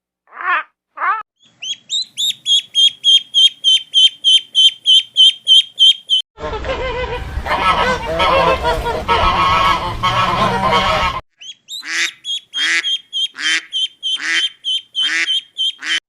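A string of bird calls in separate stretches: a fast run of high, even chirps about four a second, then several seconds of many overlapping calls, then a run of louder, coarser calls about twice a second.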